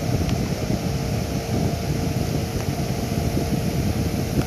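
Steady low rumbling background noise with a faint steady hum, and no speech.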